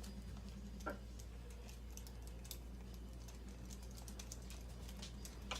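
Scattered light clicks and taps from handling small RC truck wheel parts, with a sharper click about a second in and another near the end, over a steady low hum.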